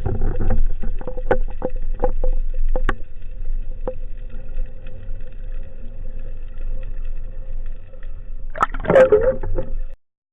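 Underwater sound with scattered sharp clicks over a steady hum, and a louder gurgling rush of water about nine seconds in; the sound cuts off abruptly just before the end.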